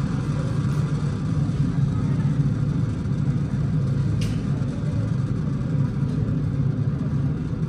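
Soundtrack of a Space Shuttle Discovery launch film played back on exhibit speakers: the steady low rumble of the shuttle's rocket engines and boosters during ascent. A brief tick sounds about four seconds in.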